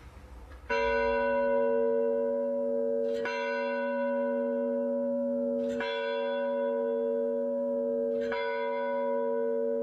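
A bell struck four times, about every two and a half seconds, each strike ringing on into the next.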